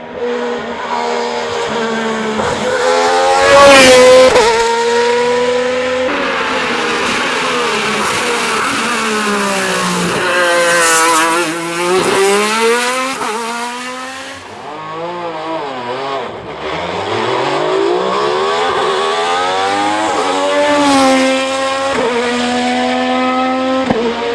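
Alfa Romeo 155 ITC/DTM touring race car's engine at full throttle on a hillclimb. The note repeatedly climbs and drops as it shifts gears and brakes for corners, and is loudest about four seconds in.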